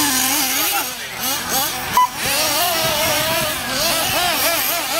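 Several off-road RC race cars' motors whining at high revs, the pitch rising and falling over and over as they accelerate and brake around the dirt track. A short sharp click about two seconds in.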